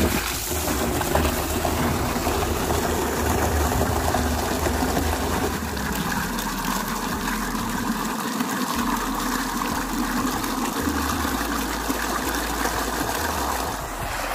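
Water gushing from the open end of a pump's delivery pipe into a plastic drum, a steady rush as the drum fills.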